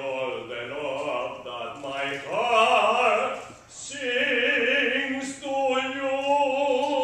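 Male operatic tenor singing with a wide vibrato. After a short break about halfway, he holds one long note through the rest.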